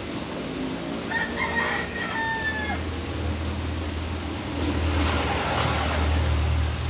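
A rooster crowing once, about a second in: one long call held for over a second that drops in pitch at the end. A low rumble swells underneath through the second half.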